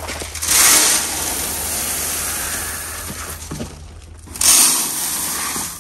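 Granular chickpea seed and fertilizer poured from plastic tubs into a seed drill's metal hopper, a rushing, rattling hiss. Two pours: the first starts about half a second in and tails off after about three seconds, the second comes just past four seconds in.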